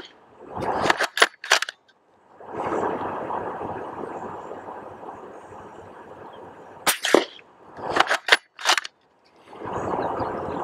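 Sharp cracks like rifle shots in two clusters, several about a second in and several more around seven to nine seconds in. Between them a rushing noise, like wind on the microphone, swells and fades.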